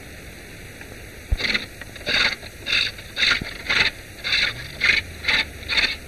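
Rhythmic scraping strokes of a woodworking tool shaving a wooden chair leg, about two a second, starting just over a second in, against a steady background hiss.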